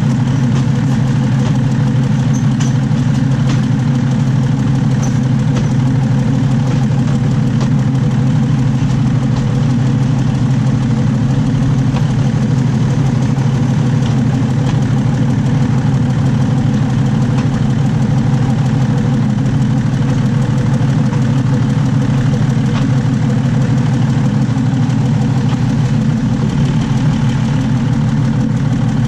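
Diesel railcar running, heard from right under the carriage: a loud, steady deep drone from the underfloor diesel engine and driveline mixed with the wheels rolling on the rails, holding the same level throughout.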